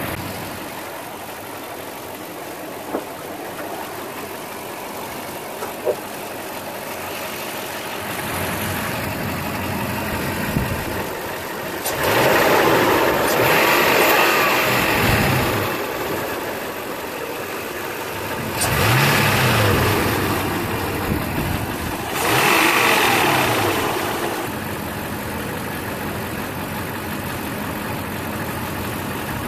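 Replacement Toyota engine running at idle with a knock that the owner calls a horrible rod knock, blipped up in revs three times, about twelve, nineteen and twenty-two seconds in, each rise falling back to idle.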